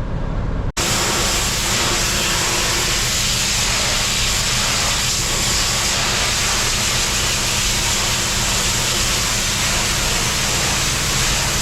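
Pressure washer jet spraying a barn wall: a loud, steady hiss with a low, steady machine hum beneath it, beginning abruptly about a second in.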